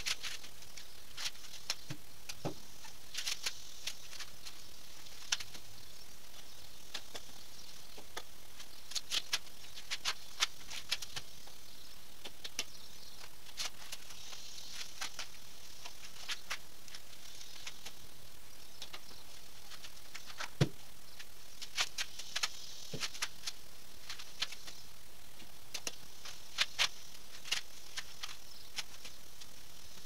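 Green corn husks crackling and tearing irregularly as ears of Silver Queen sweet corn are shucked by hand, with sharp snaps now and then, the loudest about two-thirds of the way through. A steady faint high hiss lies underneath.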